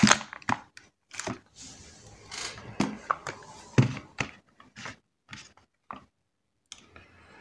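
Cardboard bait boxes and plastic packets being handled and set down on a table: a string of light knocks and clicks with some rustling, dying away about six seconds in.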